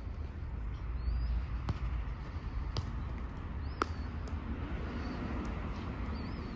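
Several sharp thuds of a football being kicked and touched on artificial turf, the loudest a little under four seconds in, over a steady low rumble of city traffic. A few faint short high chirps recur.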